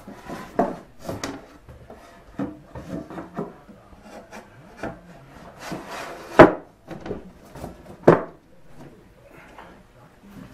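Thin wooden back panel being worked into the walnut cabinet case: wood rubbing and scraping with scattered knocks. The two loudest knocks come a little past the middle and again about two seconds later.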